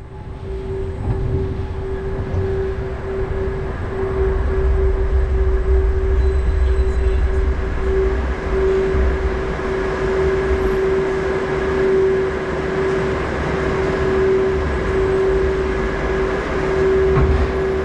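Launched roller coaster train moving slowly out of the station onto its launch track and then holding there before the launch, a steady hum running throughout over a low rumble.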